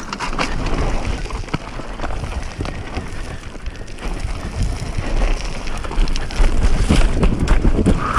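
Enduro motorcycle rolling down a steep, rocky slope: loose stones and gravel crunch and rattle under the tyres and the bike clatters over the rough ground, with wind rumbling on the helmet-camera microphone. It gets louder over the last couple of seconds.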